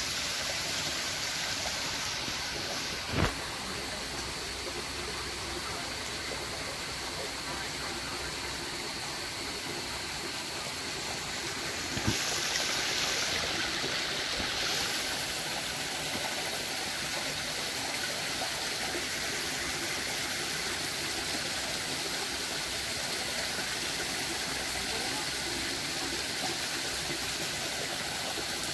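Small mountain stream running over rocks: a steady rush of water, with two brief knocks about 3 and 12 seconds in.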